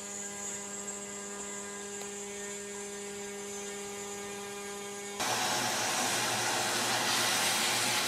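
Snapmaker A350T CNC spindle running steadily while its end mill cuts plywood: a steady hum with a few higher fixed tones. About five seconds in, this gives way to a vacuum cleaner running, a louder even hiss with a low hum, as sawdust is sucked off the cut part.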